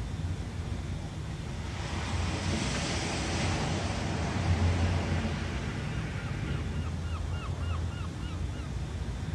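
Synthesised ocean surf from a GarageBand Live Loops sample: a steady wash of waves that swells about two seconds in and eases again. A quick run of short chirps comes in over the wash for the last few seconds.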